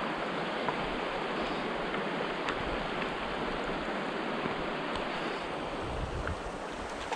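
Stream water running with a steady, even rush.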